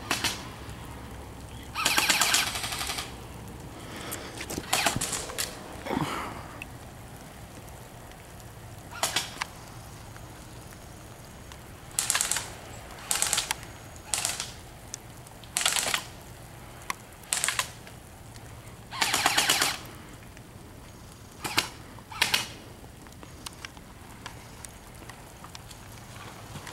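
Airsoft electric rifles firing short full-auto bursts, each a quick rattle of shots. About a dozen bursts come at irregular intervals, the longest lasting about a second.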